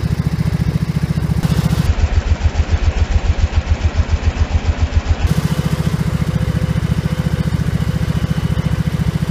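Small riding-mower engine running steadily at idle with an even, rapid exhaust pulse. About two seconds in it turns to a deeper, choppier beat for some three seconds, then goes back to the steadier sound.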